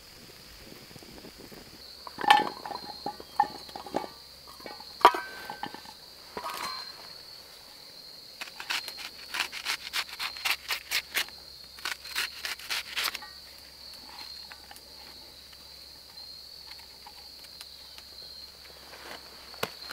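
A knife slicing an onion and potatoes into a small metal pot held in the hand: a run of quick cuts, about two or three a second, from a little before halfway, after a few sharper knocks near the start. A steady high insect buzz goes on throughout.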